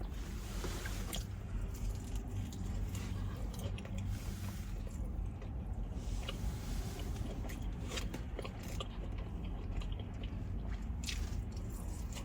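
Close-miked chewing of food dipped in Raising Cane's sauce: wet squishing mouth sounds with scattered crisp clicks, over a steady low hum.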